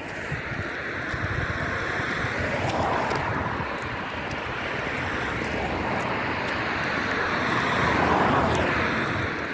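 Cars driving past on the road, their tyre and engine noise swelling and fading away: one pass about three seconds in and a louder one near the end.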